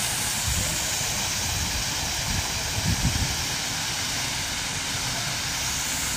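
Steady hissing background noise, with a few low rumbles about two to three seconds in.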